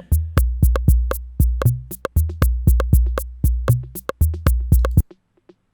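Arturia DrumBrute analog drum machine playing a beat: deep booming kick with fast sharp hits on top. The beat cuts off suddenly about five seconds in, leaving only faint ticks.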